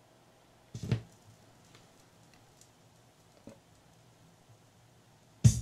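Fisher 501 turntable's tonearm being cued down onto a spinning 45 RPM record: a few faint mechanical clicks, then a sharper, louder click near the end as the stylus sets down in the lead-in groove, over a faint steady hum.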